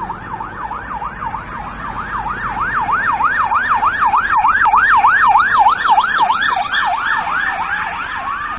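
Vehicle siren in a fast yelp, its pitch sweeping up and down about three times a second, growing louder to a peak about halfway through and then fading as it passes.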